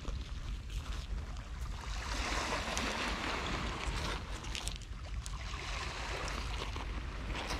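Surf washing up and drawing back on the beach in swells a few seconds long, with a few short clicks and wind rumbling on the microphone.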